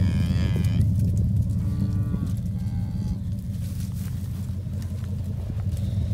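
Hungry beef cattle mooing as they come in for feed: three calls in the first three seconds, the first one higher-pitched. A steady low rumble runs underneath.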